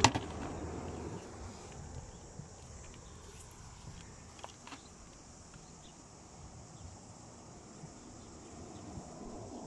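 A steady, high-pitched drone of insects. A sharp click right at the start is the loudest event, and a few faint ticks follow about halfway through.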